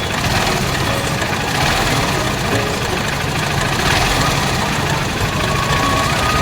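Honda Shine's 125 cc single-cylinder four-stroke engine idling steadily with a mechanical rattle from the engine, the timing chain noise the video sets out to diagnose and fix.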